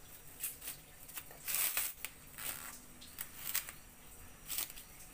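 Plastic cling film crinkling and rustling as hands spread and fold it, in irregular short crackly bursts, the longest near the middle.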